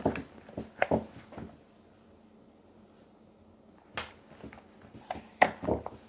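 Handling sounds of a silicone mold and dessert inserts on a board: light taps and knocks as inserts are popped out of a flexible silicone mold and pressed into mousse-filled mold cavities. A few taps near the start, a quiet stretch, then a cluster of knocks in the last two seconds, the loudest about five and a half seconds in.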